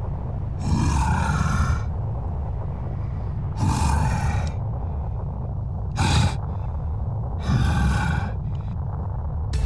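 Heavy, rasping breaths of the animated Hulk, four of them, the third short, over a steady low rumble.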